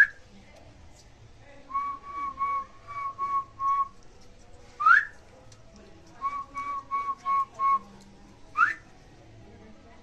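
Whistling: three quick upward-sliding whistles, and between each pair a run of short, evenly spaced notes held at one pitch, about three a second.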